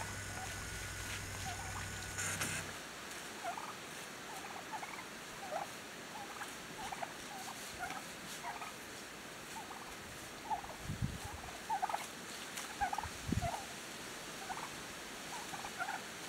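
A flock of wild turkeys calling with many short, quick notes at irregular intervals. A steady low hum with a high whine sounds for the first two seconds or so and cuts off abruptly. Two dull thumps come about two-thirds of the way through.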